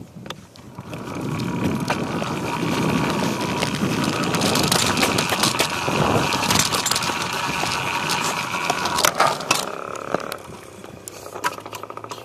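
Dirt bike riding along a wet road, its engine running steadily under a broad rush of wind and road noise picked up by a phone taped to the handlebars. It swells about a second in and eases off near the end.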